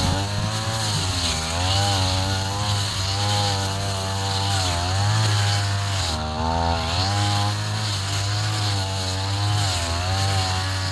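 Two-stroke brush cutter engine running hard, its pitch dipping and recovering about once a second as the blade cuts through tall grass.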